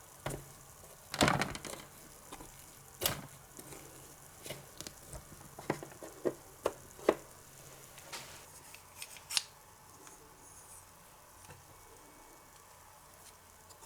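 Small sharp clicks and taps of miniature toy utensils and dishes being handled, with a quick cluster about a second in and single taps scattered over the next several seconds.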